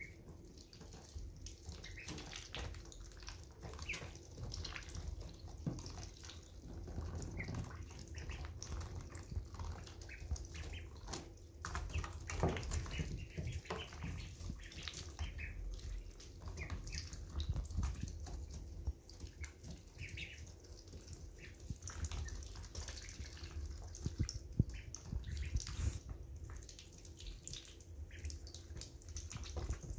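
Week-old ducklings drinking and dabbling in a shallow water dish and pecking at feed: irregular small splashes, drips and clicks of bills against the dishes.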